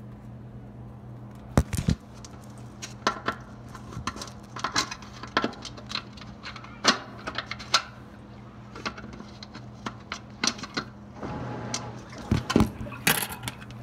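Irregular plastic clicks and knocks as an object is poked into a top-loading washing machine's lid-lock slot to get past the lock, with a louder flurry of clatter near the end, over a steady low hum.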